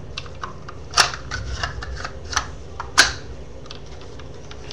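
Hard plastic parts of a battery-operated pencil sharpener clicking and knocking together as they are handled and fitted back together, with two sharper clacks about one and three seconds in and lighter clicks between.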